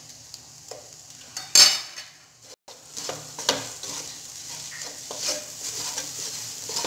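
A wooden spatula stirs and scrapes fried onions, capsicum and tomato in a hot non-stick kadai while the oil sizzles. There is a sharp knock about one and a half seconds in, and the stirring strokes come thicker in the second half.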